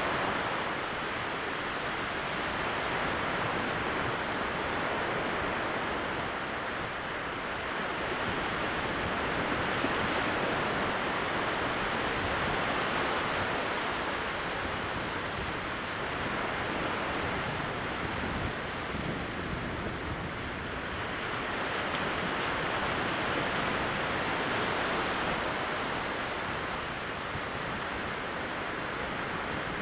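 Calm sea at very low tide: small waves breaking in a steady wash of surf that slowly swells and eases every several seconds.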